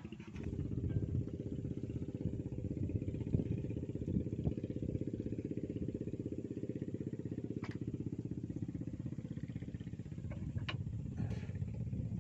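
A small engine running steadily, with a couple of short sharp clicks late on.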